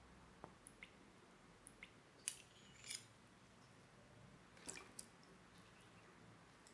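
Faint scattered clicks and taps of a metal spoon against a ceramic bowl, with a couple of short soft wet sounds as sauce ingredients go in.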